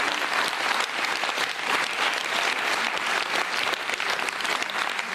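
Studio audience applauding: many hands clapping steadily.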